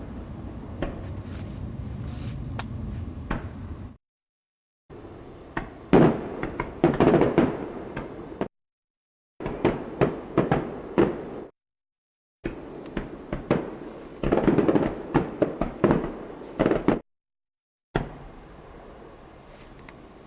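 Fireworks going off: runs of sharp bangs and crackles, broken four times by stretches of complete silence.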